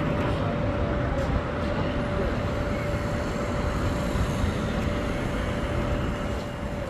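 A machine running steadily, with a constant hum that cuts out near the end.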